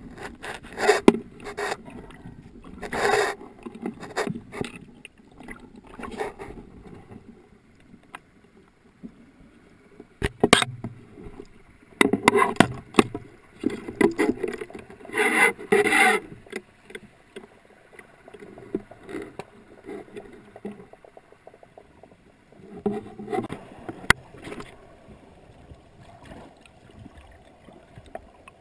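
Irregular knocks, scrapes and rubbing of a speargun being handled and reloaded underwater, its shaft and rubber bands worked by hand, picked up by the camera mounted on the gun. Water swishes in between, with the loudest clusters of knocks near the middle.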